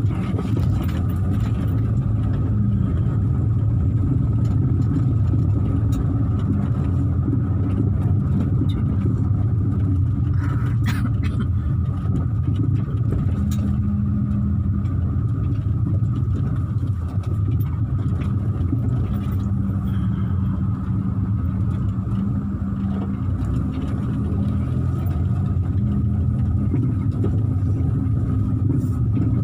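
Car engine and tyre noise heard from inside the cabin while driving: a steady low rumble, with a thin steady whine above it.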